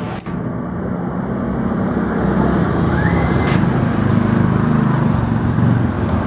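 A large road vehicle's engine running close by, its low rumble growing louder as it approaches and passes. There is a short rising squeal about three seconds in.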